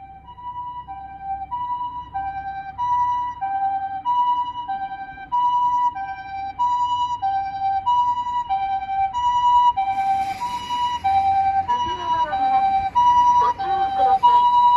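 Japanese ambulance's TCD electronic siren sounding the two-tone hi-lo "pee-poh" call, the two pitches alternating a little faster than once a second and growing louder as it approaches. From about two-thirds of the way through, a rush of road noise joins it as the ambulance draws close.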